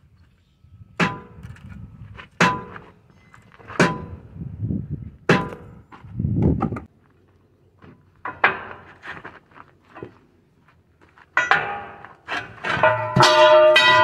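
Steel parts of a big loader tire's three-piece lock-ring rim being struck: four ringing metal clangs about a second and a half apart, then scattered clangs, and a dense run of clanging with sustained ringing near the end.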